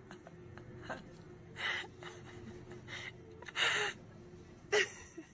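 A few short breathy gasps, the loudest about three and a half seconds in, over a faint steady hum.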